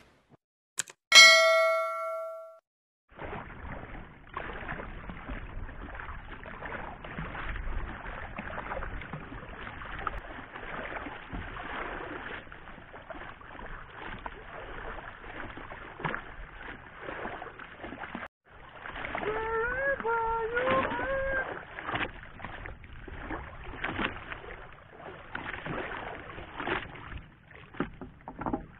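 A single bright bell-like ding about a second in, then steady wind-and-water noise with scattered knocks, as from a small fishing boat on the sea.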